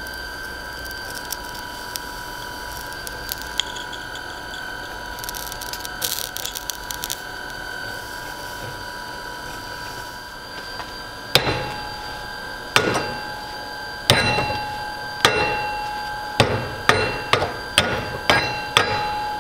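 Heavy hammer blows on a steel drift block set on a mini excavator track sprocket's shaft, driving out the stuck shaft. About a dozen ringing metal strikes start about halfway through, slow at first, then quickening to about two a second. Before them there is only a steady hum.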